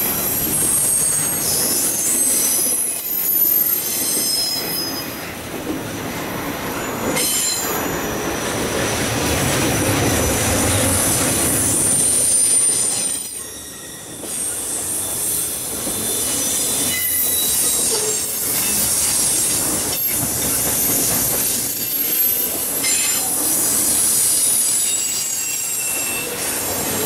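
Double-stack intermodal freight cars rolling past: steel wheels rumbling over the rails, with thin high-pitched wheel squeals coming and going. The noise drops briefly about halfway through, then picks up again.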